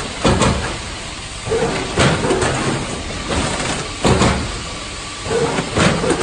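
Automatic multihead-weigher and vertical form-fill-seal packing machine running through its bagging cycle. A sharp mechanical clack with a rush of air comes about every two seconds as the pneumatic mechanism works, over a steady machine din.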